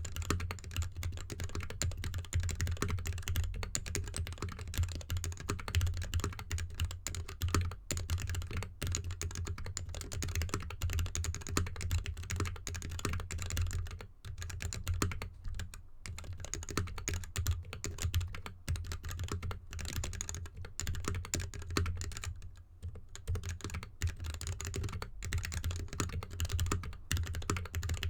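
Fast, continuous typing on a GK64X mechanical keyboard with lubed linear Gateron switches and DSA keycaps in an anodized aluminium case, set on a desk mat. The keystrokes pause briefly about halfway through and again later.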